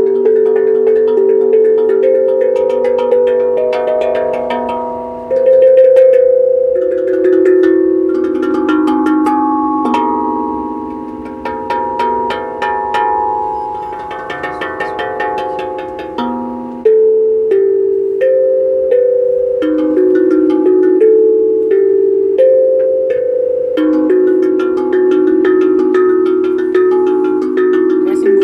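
Tuned percussion played as a melody: a steady run of struck notes that ring on and overlap, each note decaying after its strike. About a third of the way in the notes come quicker and softer before the playing swells again.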